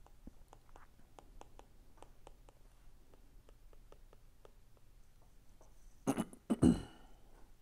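Stylus tip tapping and scratching on a tablet's glass screen during handwriting: faint light ticks, a few a second. About six seconds in, a person clears their throat in two short, loud bursts.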